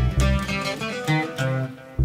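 Acoustic guitar played live, a run of plucked notes and chords that eases off briefly near the end.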